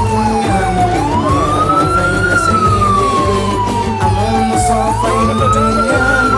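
A vehicle siren wailing, its tone rising quickly and falling slowly in a cycle of about four seconds, over a steady low din.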